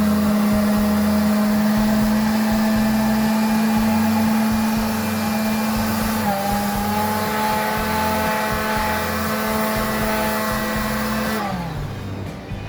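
An electric power tool's motor running at a steady high speed with a hiss over it. Its pitch steps up slightly about six seconds in, then falls away near the end as it is switched off and spins down.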